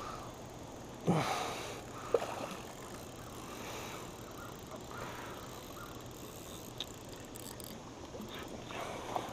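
Quiet open-water ambience around a fishing kayak, broken about a second in by a short, loud, falling sound and a sharp click just after two seconds, then a few faint ticks.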